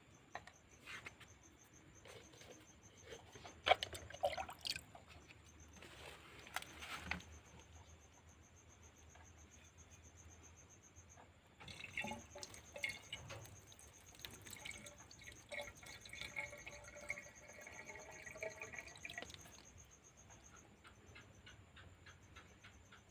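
Water being poured and dripping, with a few knocks and clicks of handling, over a cricket chirping steadily in a fast pulse.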